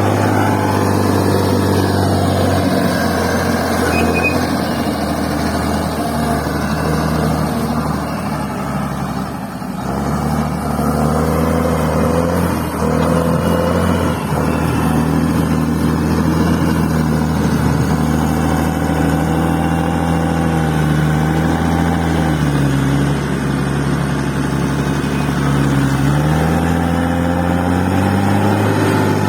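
Bulldozer's diesel engine running steadily while it levels fill soil. The engine pitch drops for a few seconds near the end, then picks back up.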